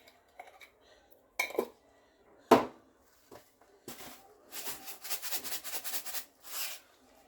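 Spoon knocking against a cooking pot a few times, one sharp knock loudest, then a quick run of scraping strokes, about five a second, as thick pumpkin soup is stirred in the pot.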